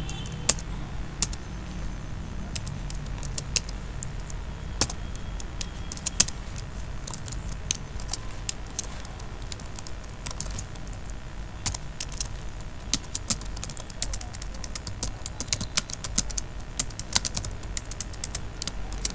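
Typing on a computer keyboard: separate keystrokes a second or so apart at first, then quicker runs of keys in the last few seconds, over a steady low hum.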